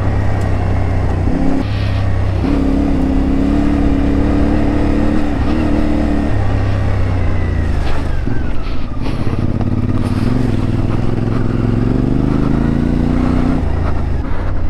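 CFMoto 450MT's parallel-twin engine with its 270-degree crank, ridden off-road at low to middle revs. The revs hold steady, fall away from about six to nine seconds in, climb again, and drop near the end.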